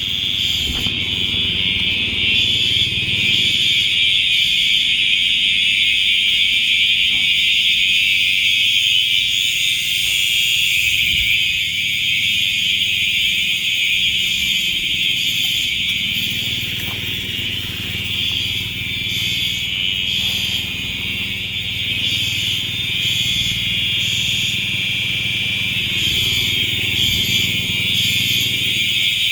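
Building fire alarm horns, FCI and System Sensor SpectrAlert Advance units, sounding loudly and continuously without a break: a false alarm set off by roof repair work.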